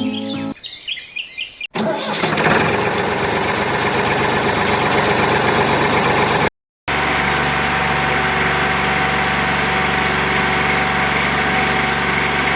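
A motor running steadily, with a low hum under a noisy rattle. It is cut off briefly about halfway through and then carries on. Before it, music and birdsong end abruptly a second or two in.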